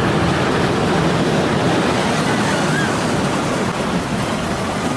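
Roller coaster train running along its steel track and passing close by, a steady noise with no breaks.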